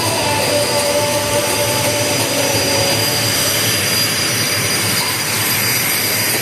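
Aircraft turbine engines running: a steady, loud rush with a faint whine that glides slightly in pitch.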